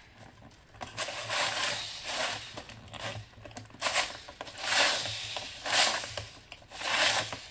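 A hand-turned circle cutter, its blade scraping round through a sheet of paper, in a series of scraping strokes about once a second.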